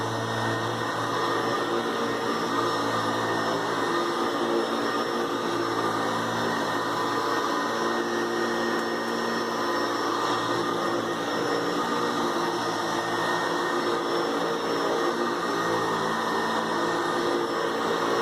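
Hoover Convertible Elite upright vacuum cleaner running steadily while vacuuming, its motor and brush roll giving an even whirring hum whose lower tones shift a little as the machine is pushed about.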